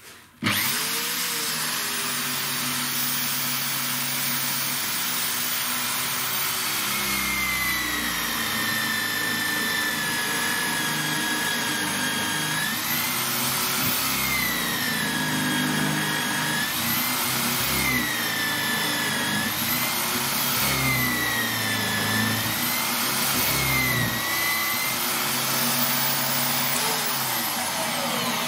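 Bosch GSB 21-2 RE corded drill in a drill stand, spinning up and running a 25 mm Forstner bit through multiplex plywood. The motor whine's pitch sinks and rises again about four times as the bit cuts, and the drill shuts off at the end.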